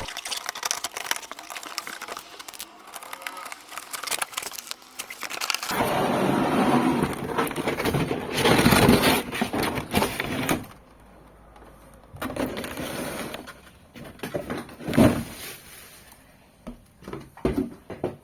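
Rustling, crackling and scattered knocks of cardboard and plastic packaging being handled while a boxed statue figure is unpacked, busiest in the first half and thinning to a few separate knocks near the end.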